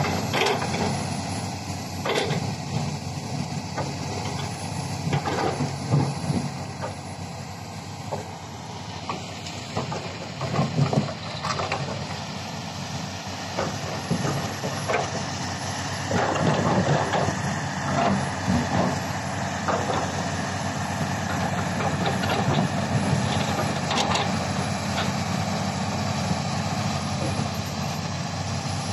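Diesel engines of a Komatsu hydraulic excavator and a crawler bulldozer working, a steady engine drone with scattered clanks and knocks.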